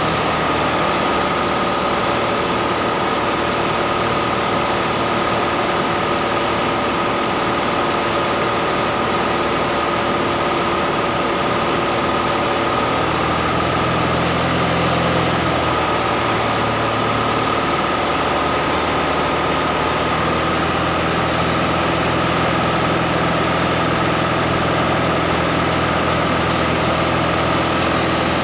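Piper Comanche 250's six-cylinder Lycoming engine and propeller droning steadily on final approach, heard from inside the cabin with airflow noise. The low drone shifts slightly about halfway through.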